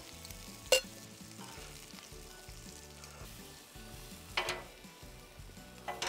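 Shrimp sizzling on a hot cast-iron griddle plate while steel tongs scrape them into a stainless steel cocktail shaker. There are a few sharp metallic clinks: one about a second in, a louder one at about four and a half seconds, and another near the end.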